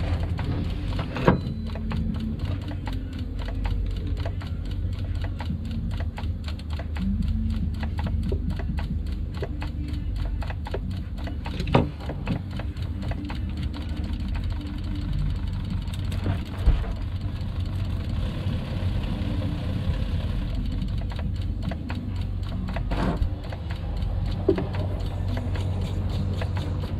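Small 12 V diaphragm water pump, the new SHURflo replacement, running steadily with a low hum and rapid chatter as it pumps water through a test hose rig and builds pressure. A few sharp knocks come from the fittings being handled.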